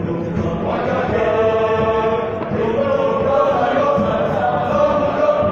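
Male choir singing an African folk song, with long held notes that shift in pitch every second or so.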